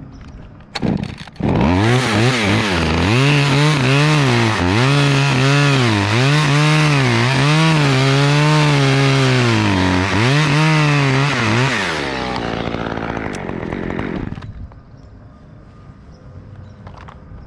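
Chainsaw running at high speed while sawing through poplar wood, its pitch repeatedly dipping and recovering. It starts about a second and a half in and drops away after about ten seconds.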